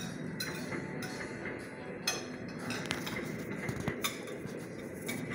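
Dishes and cutlery clinking in a restaurant: scattered sharp clinks, a few seconds apart, over a steady rumble.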